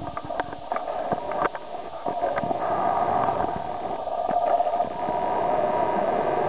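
Steady hum of lab equipment cooling fans, with scattered light clicks during the first two and a half seconds.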